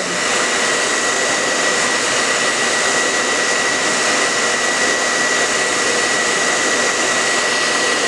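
Hair dryer running steadily, a constant rush of air with a steady high-pitched whine, blowing hot air to tack heat-transfer vinyl onto a metal tumbler.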